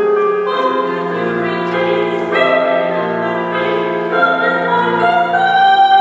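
Mixed choir singing slow, held chords with piano accompaniment, the notes changing together about once a second.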